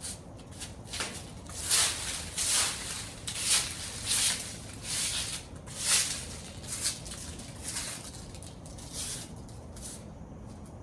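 Irregular rustling and scratching, short bursts about one or two a second, thinning out after about eight seconds.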